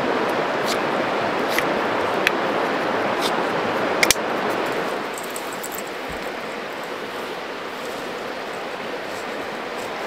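Steady rushing of a river, with a few sharp clicks from a rechargeable electric lighter's extendable neck being handled over the first four seconds, the loudest a double click just after four seconds. About five seconds in, the rushing drops to a lower level.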